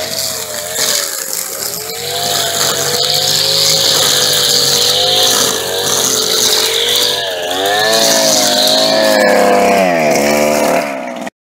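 Small engine of a string trimmer running at high revs, its pitch wavering with the throttle as it cuts grass. Near the end the throttle is released and the pitch drops steeply, then the sound cuts off suddenly.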